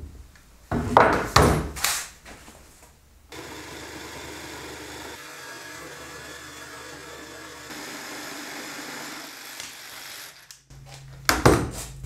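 Jigsaw cutting through a wooden board, running steadily for about seven seconds. Before it come a few loud knocks and scrapes, and a couple more come near the end.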